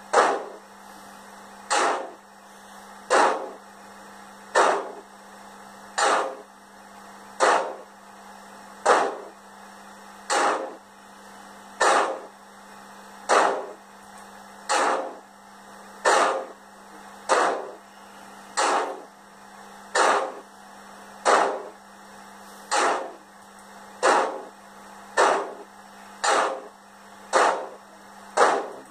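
Steam exhaust chuffs from an ESU LokSound 5 sound decoder in a Roco H0 class 85 model steam locomotive running slowly on a rolling-road test stand. The chuffs come evenly about every one and a half seconds, drawing slightly closer together, over a steady low hum.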